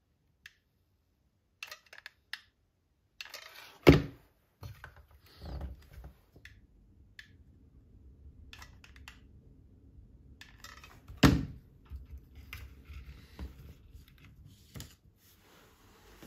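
Short hollow bamboo tubes being handled, knocking against each other and set down on a plastic disc: scattered light clicks and taps, with two louder knocks about four seconds in and about eleven seconds in.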